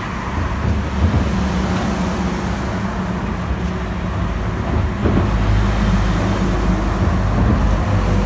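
Steady low rumble of road traffic passing on a bridge.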